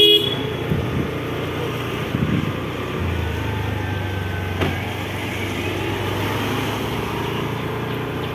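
A small motorbike engine running steadily as it rides along, with road and wind noise; a deeper steady engine hum comes in about three seconds in.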